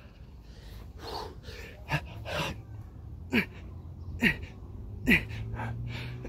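A man panting hard, worn out from a long run of burpees, with three short grunts that fall in pitch, a little under a second apart, in the second half.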